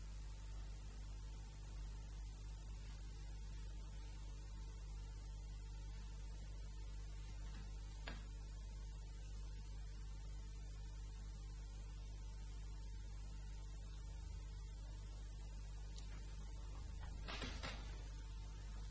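Faint, steady electrical mains hum with hiss underneath, the recording's noise floor; a single faint click about eight seconds in.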